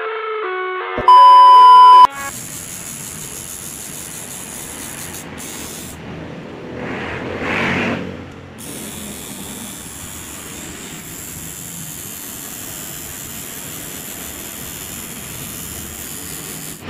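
A loud electronic beep lasts about a second. Then a coil tattoo machine runs with a steady buzz as it inks the skin, and a short louder rushing sound comes around the middle.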